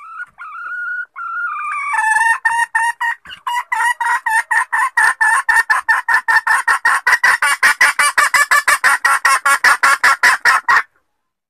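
Junglefowl hen calling, the mating-solicitation call used as a lure for wild junglefowl: a few drawn-out, wavering squawks, then a fast, even run of sharp clucks, about five a second and growing louder, that stops abruptly near the end.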